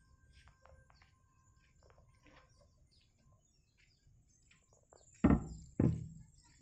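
Birds chirping faintly in short calls, then two heavy thumps about half a second apart near the end, each dying away quickly.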